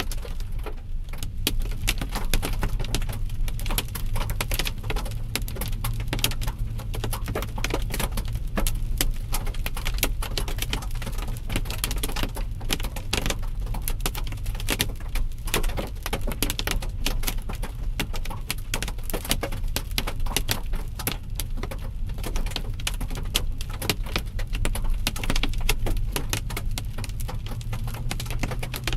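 Hailstones pelting a vehicle on the highway: a dense, irregular rattle of hard hits that keeps up throughout, over a steady low hum of engine and road noise.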